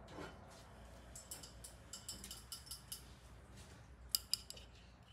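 Flatware clinking against itself and the dishwasher's cutlery basket as pieces are set in: a run of light clicks, then two sharper clinks near the end.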